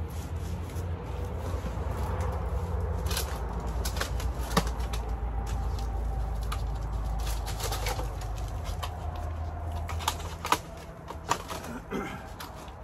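Plastic nursery flats being pulled out and handled: scattered clicks, knocks and crinkles of thin plastic, with a few sharper knocks near the end, over a steady low rumble.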